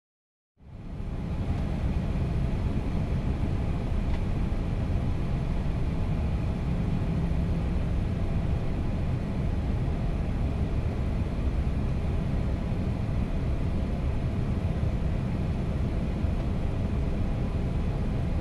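Steady low rumble inside the cockpit of an Airbus A319 airliner as it taxis, fading in about half a second in and then holding even.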